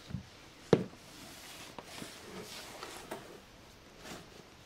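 A single sharp knock under a second in, followed by quiet rustling and a few faint taps.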